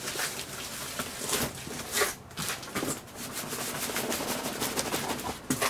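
Cardboard shipping box and bubble wrap rustling and scraping as hands work a tightly packed, bubble-wrapped box out of the carton, with irregular small crackles throughout.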